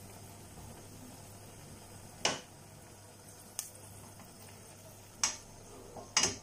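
Fenugreek seeds frying in hot oil in a stainless steel pan: a faint steady sizzle broken by four sharp pops as the browning seeds splutter.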